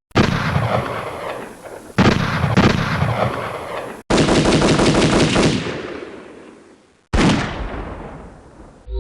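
A run of four separate gunfire sound effects, one after another: bursts of rapid automatic fire, each fading out in a reverberant tail before the next begins.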